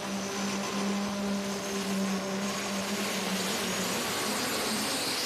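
Super stock diesel pulling tractor's engine running hard under load, with a steady low tone and a high turbocharger whine that grows stronger from about halfway. The engine note wavers near the end.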